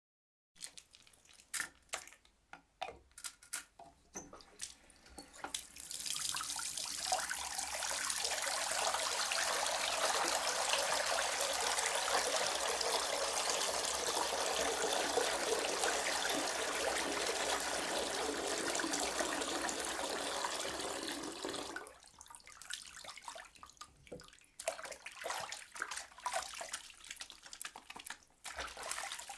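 A person washing their hands at a sink: a few handling clicks and splashes, then the tap runs in a steady rush of water for about fifteen seconds and is shut off abruptly, followed by small wet rubbing and clicking sounds.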